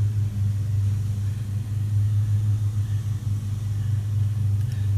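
A steady low machine hum.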